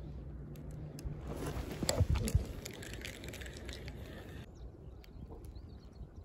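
Handling noise from a fishing rod and reel being brought in by hand: rustling with scattered clicks, and two loud low knocks about two seconds in. A soft steady background of water runs beneath.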